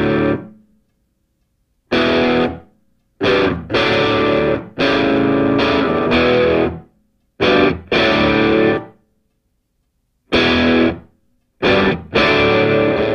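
Background music: distorted electric guitar chords played in separate stabs, each dying away into a moment of silence, with longer held chords about five seconds in and again near the end.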